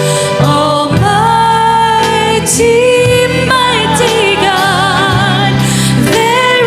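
Praise team performing a worship song: a singer holds long, wavering notes over band accompaniment with a steady bass line.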